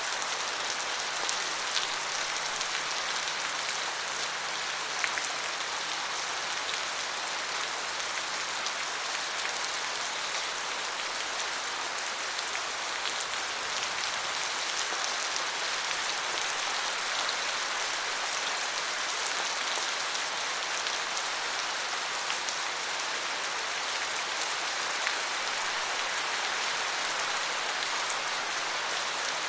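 Steady rain falling, an even hiss of drops with faint individual patters.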